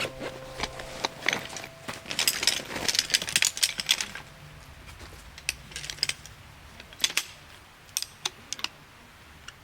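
Irregular sharp clicks and light clatter, a dense flurry about two to four seconds in, then scattered single clicks.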